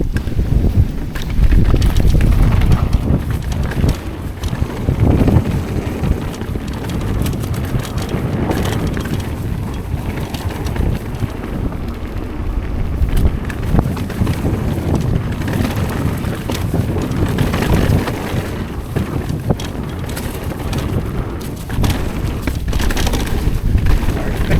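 Heavy wind buffeting the microphone of a camera on a mountain biker riding downhill at speed. The wind rumble swells and eases, with short knocks and rattles from the Yeti SB130 mountain bike running over the trail.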